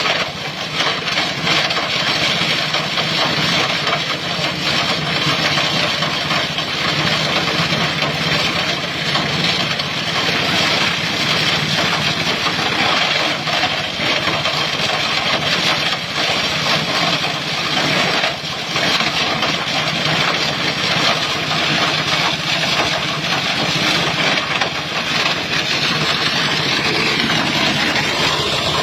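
Plastic shredder machine running steadily, a loud continuous mechanical noise with a dense clatter of small clicks.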